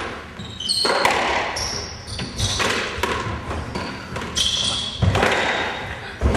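Squash rally: the ball cracking off the rackets and the court walls every second or so, echoing in the court, with short high shoe squeaks on the wooden floor as the players lunge.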